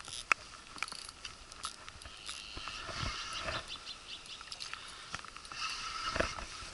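Spinning reel being cranked in intervals to bring in a hooked fish, a faint whirring that comes and goes, with scattered light ticks and taps.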